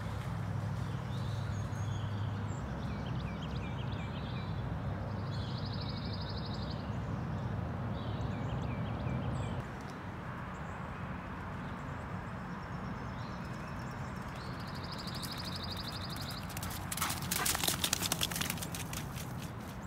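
Outdoor ambience beside floodwater: a steady wash of noise with songbirds trilling and chirping at intervals. A low hum stops abruptly about ten seconds in. Near the end comes a brief burst of rapid thuds and rustling from running footsteps on grass beside the dog.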